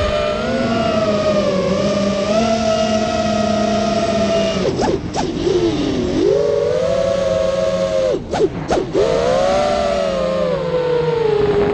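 FPV quadcopter's brushless motors whining steadily in flight. The pitch dips sharply and climbs back about five seconds in, then twice more in quick succession around eight seconds in, as the throttle is cut and opened again.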